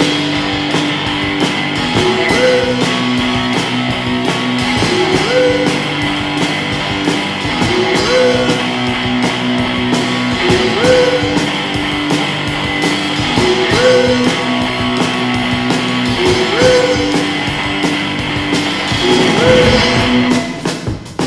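Rock music with electric guitar over a steady drum beat, a riff repeating about every two seconds; it dips briefly near the end.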